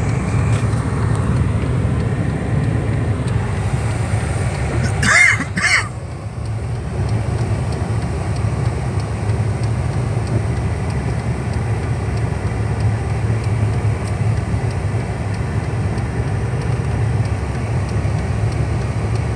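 Steady low rumble of a car's engine and tyres on a snowy road. About five seconds in there is a brief, high, squawk-like sound in two short pulses.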